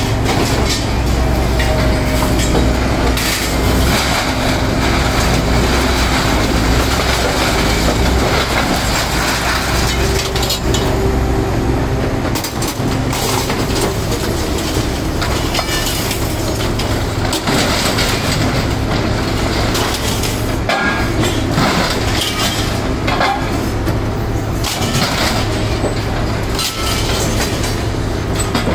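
Scrap-yard material handler's engine running steadily while its orange-peel grapple loads scrap metal into an open-top trailer, with repeated clanks and crashes of metal throughout.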